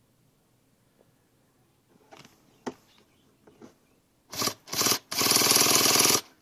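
Onboard electric starter of a nitro RC vehicle cranking the engine with a fast buzzing whir, in two short bursts and then a longer one about a second long, starting about four seconds in. A few faint handling clicks come before it.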